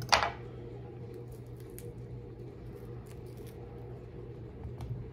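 A kitchen knife chops through a jalapeño pepper and hits the laminate countertop with one sharp knock right at the start, followed by a few faint clicks as the knife and pepper pieces are handled on the counter, over a low steady hum.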